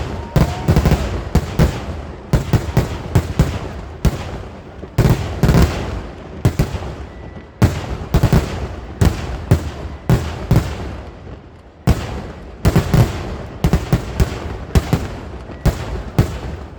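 Fireworks going off in a rapid, irregular barrage: loud bangs, often several in quick succession, some with a deep boom.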